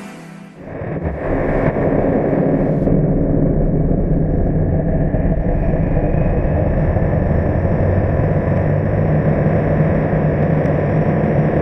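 Steady roar of the New Shepard's liquid-hydrogen, liquid-oxygen rocket engine firing, starting less than a second in and holding level.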